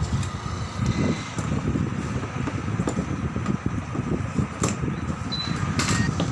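A steady low mechanical rumble, like a nearby engine running, with a few sharp clicks in the last couple of seconds from the plastic tool case being handled.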